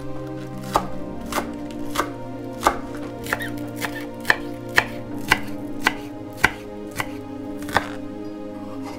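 Chef's knife chopping green onions on a wooden cutting board: about a dozen sharp knocks of the blade on the board, unevenly spaced at roughly one or two a second, ending about a second before the end.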